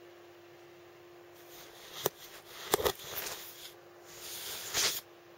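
Rustling close to the microphone with a couple of sharp knocks about two and three seconds in, over a faint steady hum.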